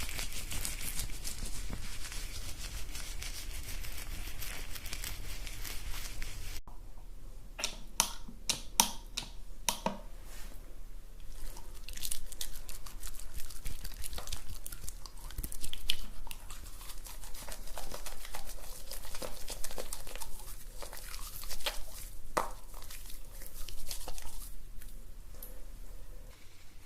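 Hair being shampooed close to a binaural microphone. First comes a steady scrubbing hiss of fingers rubbing the lathered scalp; after an abrupt cut, about six and a half seconds in, it turns to irregular crackling and squishing of the foam being worked.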